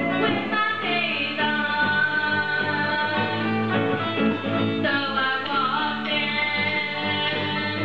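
A small band jamming a rock tune: a woman singing into a microphone over strummed acoustic guitar and electric guitar.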